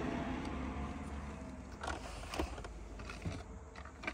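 Low steady hum inside a stopped car, fading over the first couple of seconds, with a few small sharp clicks and taps.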